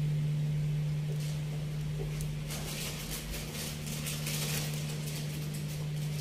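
A steady low hum with faint scattered rustles and clicks over it.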